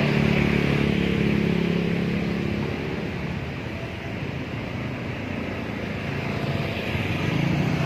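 Motor scooters riding along a narrow lane: a steady engine hum that fades over the first few seconds as one passes, then grows again near the end as another approaches, over general street noise.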